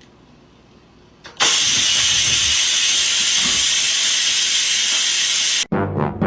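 A loud, steady hiss that starts suddenly about a second and a half in and cuts off abruptly near the end.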